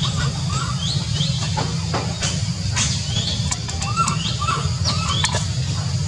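Short high animal chirps and squeaks, repeated many times with rising and arching pitch, over a steady low rumble, with a few sharp clicks.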